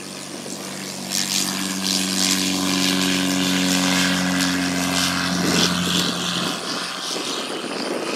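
A Jabiru light-sport airplane's engine and propeller running at full power on the takeoff run: a steady drone that grows louder about a second in. Its steady engine note fades out around six seconds in, leaving a rushing propeller and wind noise.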